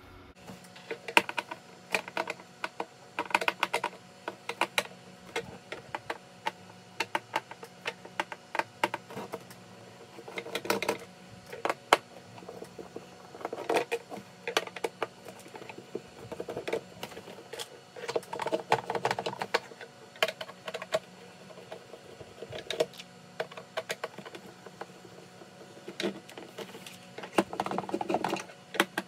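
Irregular clicks, taps and short rattling runs from tools and hands working on the plastic case of an e-bike's 48 V battery pack while it is being taken apart.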